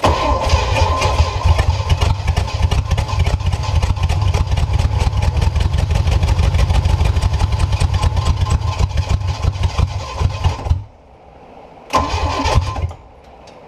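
Small-block Chevy 350 marine inboard cranking over on its starter, with the spark plugs out of cylinders 1 and 6 to blow gunk out of the cylinders. A long crank of about eleven seconds, then a short second crank of about a second.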